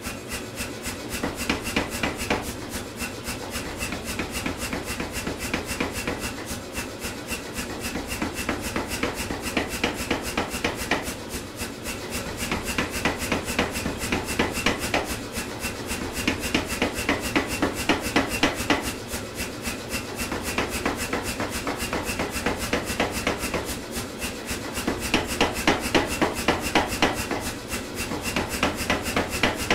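Say-Mak air power hammer striking a hot steel bar in rapid blows, several a second, easing off briefly every few seconds as the bar is drawn out to a taper.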